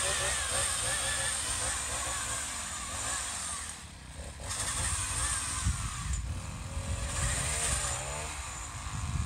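Troy-Bilt TB685EC four-cycle string-trimmer engine powering a pole saw attachment, its revs wavering up and down. The throttle eases off briefly about four seconds in, then it revs up and down again.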